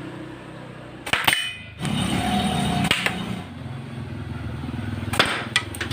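Several sharp snaps or cracks: one about a second in, one near three seconds, and three close together in the last second, over a low steady hum.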